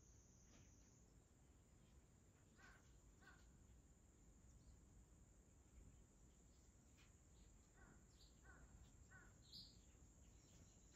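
Near silence with faint bird calls: two short calls about three seconds in, then three evenly spaced calls around eight to nine seconds, followed by a short, higher chirp.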